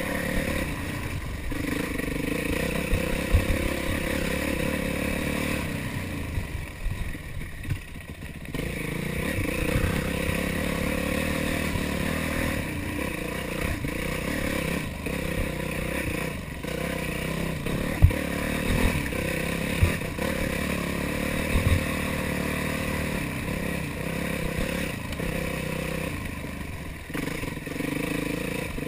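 Yamaha YZ450F's four-stroke single-cylinder engine running and revving as the dirt bike rides a rough trail, easing off briefly a few seconds in. There are a few sharp knocks and some clatter from the bike over bumps, the loudest past the middle.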